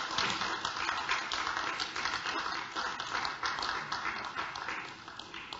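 A small group of people clapping by hand in a room, a dense patter of claps that fades away near the end.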